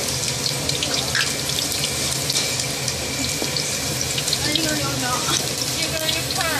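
Youtiao dough sticks deep-frying in a large pan of hot oil: a steady, dense sizzle full of small crackles and pops.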